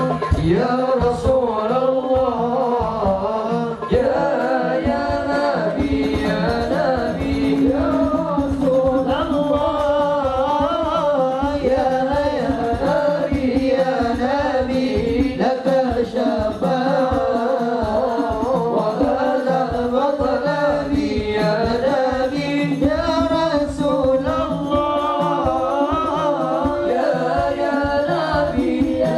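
Islamic sholawat sung live by male vocalists into microphones, melismatic wavering lines, over steady hadrah frame-drum percussion, heard through the PA.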